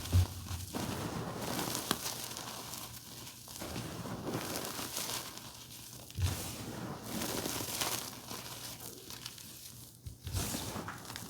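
Blue reformed gym chalk being crushed, crunching and crumbling in several stretches with short pauses between them, and a few low thumps.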